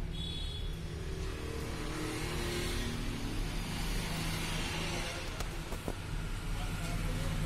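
Steady low rumble of road traffic, with a couple of faint clicks a little past halfway.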